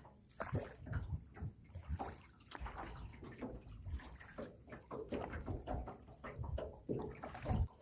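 Irregular splashing and sloshing of water in short, uneven bursts, with low knocks and rumbles between them, as the small boat is moved through the water.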